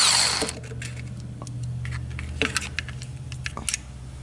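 A power drill-driver spins a bolt out of the transmission in a short whirring burst that stops about half a second in. After that there is a steady low hum, with scattered light clicks and taps of the bolt and tool being handled.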